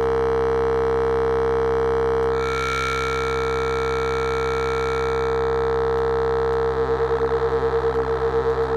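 Arturia Pigments 3 software synthesizer holding one droning note rich in overtones. It brightens a couple of seconds in and dulls again about three seconds later. Near the end it starts pulsing evenly, about five times a second.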